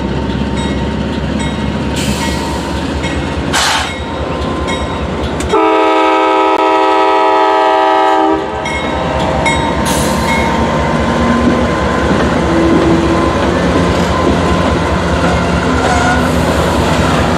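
Norfolk Southern GE diesel locomotives 4206 (AC44C6M) and 7707 (ES44DC) rumbling slowly through a grade crossing, their engines running. The lead unit sounds one long chord on its horn, lasting nearly three seconds, starting about five and a half seconds in. The crossing's Safetran electronic bell rings underneath.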